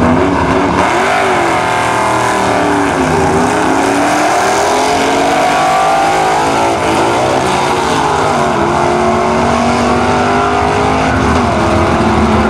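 Two 1955 Chevrolet drag cars launching side by side and running hard down the strip, their engines climbing in pitch through the gears with a drop at each of several shifts.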